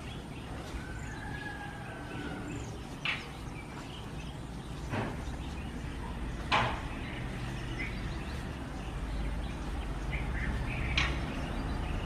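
Indian roller giving four short, harsh calls, spaced a few seconds apart, the loudest a little past halfway, over a low steady rumble.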